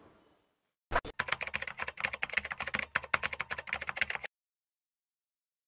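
A rapid, irregular run of sharp clicks, like typing on a keyboard, starting about a second in and cutting off suddenly after about three seconds.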